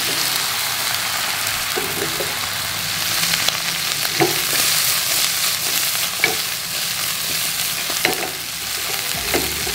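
Duck pieces sizzling in a hot nonstick wok as they are dry-toasted and browned, the liquid they gave off already poured away. A spatula turns them, with a soft knock against the pan every second or two.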